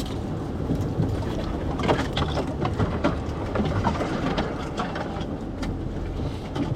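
Jeep Wrangler Willys engine running at low crawl speed over a rocky trail, with its axle lockers engaged, under a steady rumble. Irregular clicks and knocks come through, mostly in the middle of the stretch.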